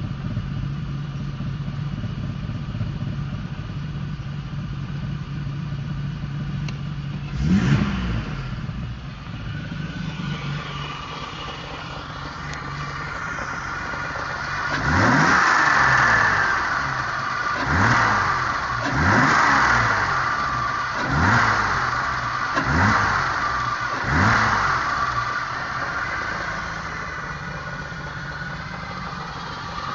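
BMW M30B35 3.5-litre straight-six idling steadily, then blipped once and later revved in about six quick throttle blips in a row before dropping back to idle. A higher-pitched whine swells with each blip, the noise being chased as a fault.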